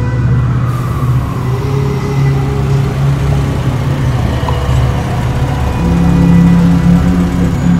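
Car engines idling steadily.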